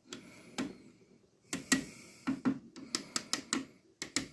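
Irregular sharp clicks and light knocks of hard plastic and metal parts being handled on a flat-screen TV that is being taken apart, with a quick run of clicks near the end.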